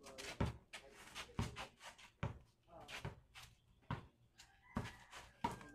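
A basketball being dribbled on concrete: a string of short, sharp bounces at uneven spacing, about one to two a second.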